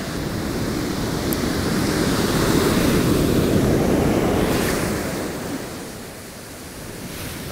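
Heavy ocean surf breaking on the beach: the rush of a wave and its wash swells to a loud peak about two seconds in, then fades away over the next few seconds.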